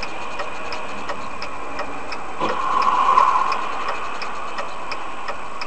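Regular ticking, about three ticks a second, over a steady hum, with a swell of louder noise for about a second in the middle.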